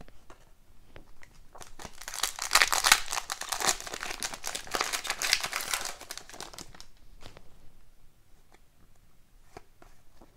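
Foil wrapper of a hockey card pack crinkling as it is torn open and peeled off the cards, a dense crackle lasting about five seconds from about two seconds in. After it come a few faint ticks of the cards being handled.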